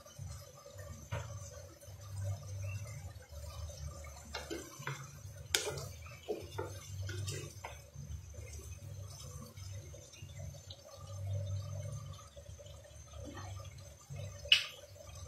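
Chopped papaya and chicken simmering in water in a nonstick frying pan, with a low rumble under it. A wooden spatula stirs through the pan midway with a run of scrapes and knocks, and there is one sharp knock near the end.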